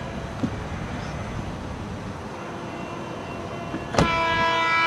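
CB&Q E5 diesel locomotive's air horn sounding for the grade crossing as the train approaches. One blast cuts off at the start, and the horn sounds again about four seconds in, a steady chord of several tones that holds.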